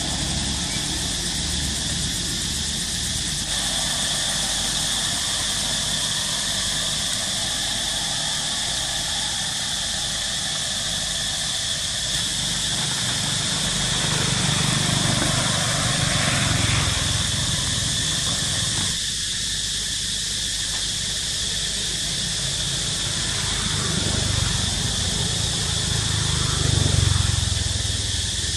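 Steady outdoor ambience with a constant high insect drone, and motor vehicles passing twice, swelling and fading about halfway through and again near the end.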